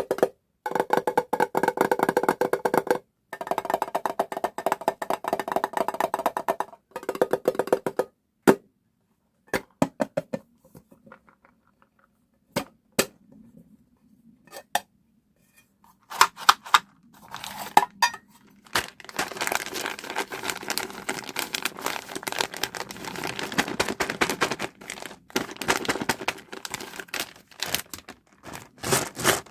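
Small hard candies such as M&M's and Skittles rattling and pouring, a dense run of quick clicks and clinks. It thins to a few separate clicks partway through, then turns to dense clinking again.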